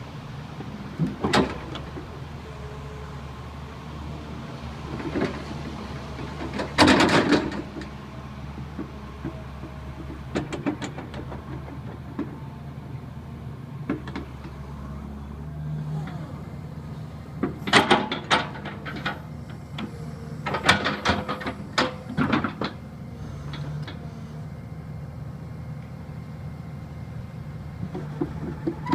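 Daewoo Solar 130 excavator's diesel engine running steadily while the machine is worked, with repeated sharp metallic knocks and short clattering runs, loudest about a quarter of the way in and again past the middle.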